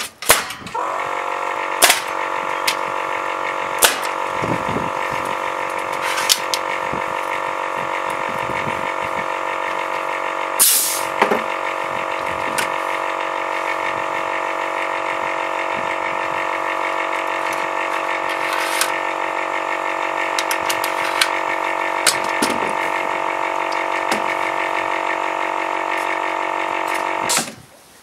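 Air compressor feeding a pneumatic nail gun kicks in about a second in and runs steadily with a hum of several tones, refilling its tank, then cuts off just before the end. A few sharp knocks sound over it.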